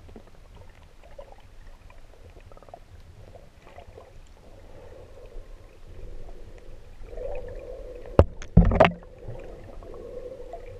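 Muffled underwater sound picked up by a GoPro in its waterproof housing: a low, even rumble of moving water. A faint steady hum joins about seven seconds in, and two sharp knocks come a little after eight seconds.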